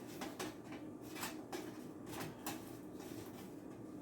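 Soft, irregular clicks and taps of shiitake mushroom slices being set out one by one on a baking pan.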